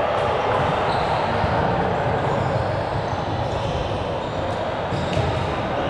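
Steady background noise of an indoor ball game in a sports hall, with a few faint ball bounces.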